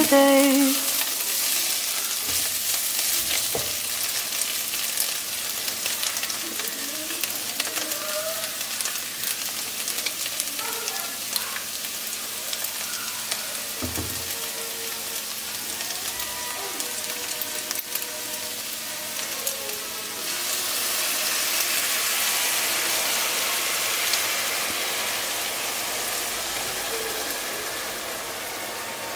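Diced meat sizzling as it fries in a non-stick pot, with a spatula stirring and scraping through it.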